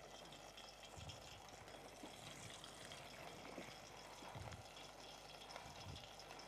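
Faint sizzle of chicken strips frying in a pot of hot oil, with a few soft low thumps.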